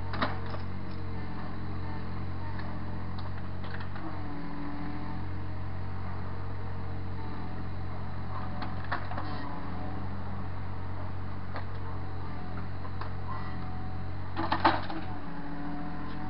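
Takeuchi mini excavator's diesel engine running steadily, its pitch rising and falling a little as it works the bucket to push soil back into a trench. A few knocks come through, the loudest a short cluster about a second and a half before the end.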